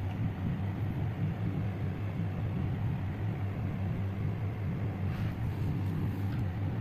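A steady low hum that runs unchanged throughout.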